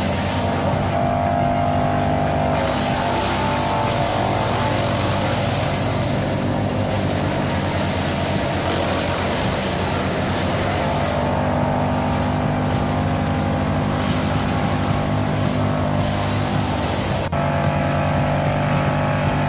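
Lippel PDU 260 D brush chipper's diesel engine running steadily under load while leafy branches are fed into its cutting system and shredded; the noise of the chipping swells and fades as material goes in. The sound jumps abruptly near the end.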